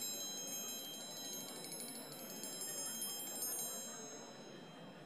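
Metal orchestral triangle struck with a metal beater in a fast roll, a bright high shimmering ring. The strikes stop about three and a half seconds in and the triangle rings on, fading away.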